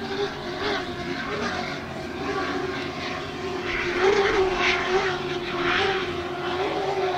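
Distant high-revving engine drone, steady in pitch with slight wavers, louder from about four seconds in, with a rushing hiss that comes and goes over it.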